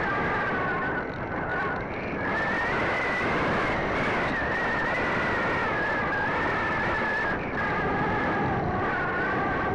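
Sky Surfer RC glider's electric motor and propeller whining steadily, heard from a camera on the plane over wind rush. The whine rises in pitch about two seconds in and drops back about three-quarters of the way through.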